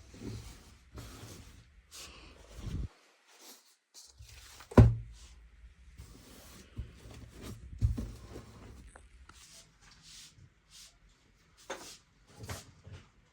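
Scattered household handling sounds in a small room: light clicks and knocks, with one sharp knock about five seconds in and another near eight seconds.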